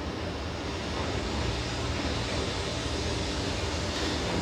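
Steady low rumble of a train, with a hiss building up near the end.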